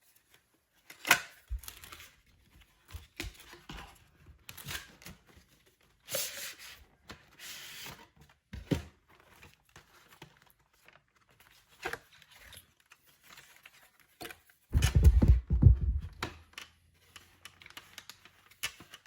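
Trimmer box and its packaging being opened by hand: scattered sharp clicks, tearing and crinkling of cardboard and plastic. About three-quarters of the way through comes a louder second or so of low, rumbling handling noise.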